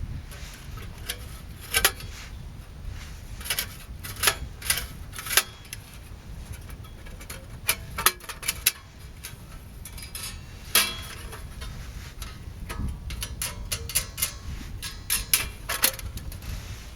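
Thin stainless-steel stove panels and fittings clinking and tapping as they are handled and fitted together: a string of irregular sharp metallic clicks, a few louder than the rest, over a low steady rumble.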